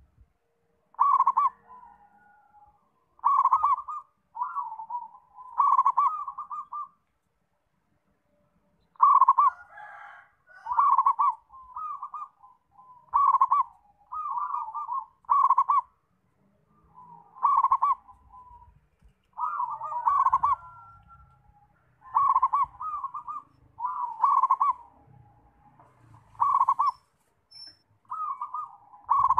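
Zebra dove (perkutut) cooing: a run of short phrases, each a quick string of staccato coos, repeated one after another with brief pauses and one longer pause about a quarter of the way in.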